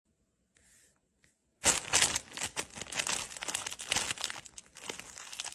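Clear plastic bag crinkling and crackling around a kitten lying inside it, starting about a second and a half in and going on in a dense run of sharp crackles.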